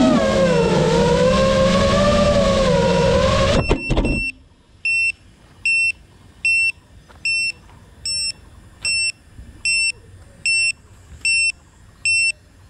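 GEPRC Mark 5 FPV quadcopter's motors whining, the pitch wavering with throttle; about four seconds in the quad drops onto gravel with a few knocks and the motors cut out. Its beeper then sounds a steady series of short high beeps, a little more than one a second.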